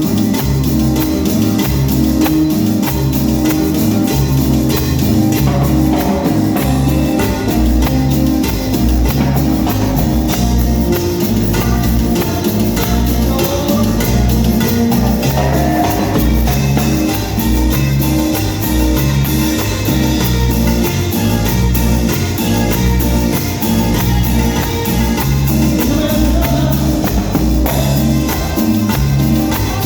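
Latin dance music played by a band, with a steady pulsing beat of bass and drums and guitar over it.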